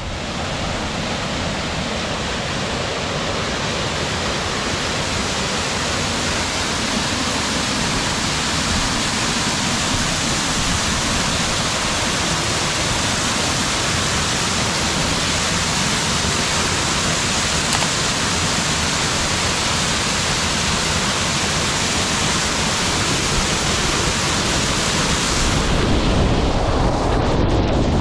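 Steady, dense rush of a waterfall close by. Near the end the high hiss fades and a low rumble grows.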